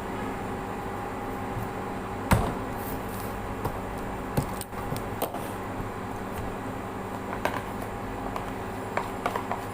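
Scattered knocks, clicks and taps of objects being handled, the loudest knock about two seconds in and a quick cluster of clicks near the end, over a steady hum.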